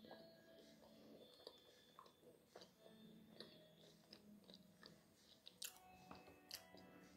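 Faint chewing of a strawberry fruit-filled biscuit: soft mouth clicks and small crunches, with a few sharper clicks about two-thirds of the way in, over a faint steady hum.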